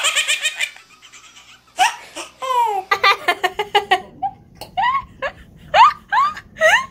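A baby laughing in a quick high-pitched burst at the start, then after a short pause a woman laughing heartily in a run of short peals, several of them rising in pitch near the end.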